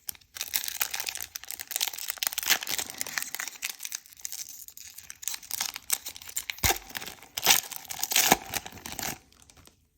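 Pokémon card booster pack's foil wrapper crinkling and being torn open, a dense run of crackling with a few sharper crackles in the last few seconds before it stops.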